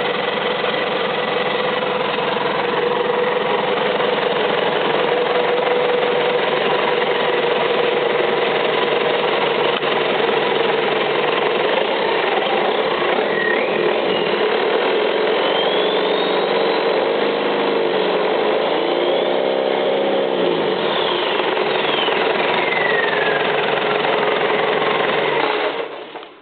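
Freshly rebuilt Isuzu 4BD1-T four-cylinder turbo-diesel running steadily on its first start, which the owner calls running good. Its pitch wavers for several seconds past the middle, and the engine falls quiet shortly before the end.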